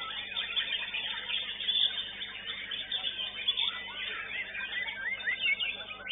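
Many caged songbirds singing at once, a dense overlapping mix of quick whistles, chirps and trills, among them a white-rumped shama.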